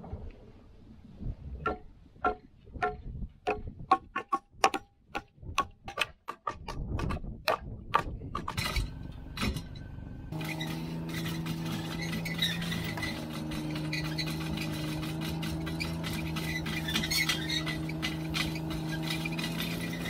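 Background music: a ticking, clock-like beat that speeds up, then steady sustained chords that come in suddenly about halfway through.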